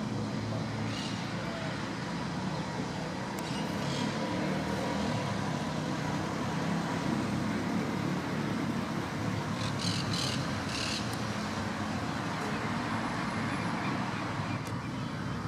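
Steady low rumble of road traffic, with a few brief high bird chirps about a second, four seconds and ten seconds in.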